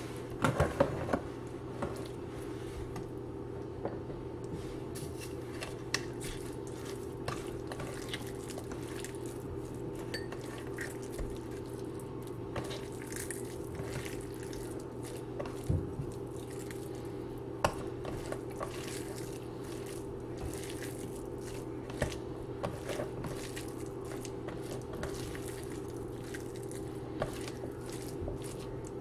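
Bharta being squished and mixed by hand on a stainless steel divided plate, with scattered light clicks and taps against the steel, loudest just after the start, over a steady low hum.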